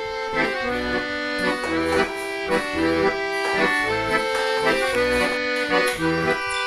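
Background instrumental music: a melody of short held notes over a low bass line.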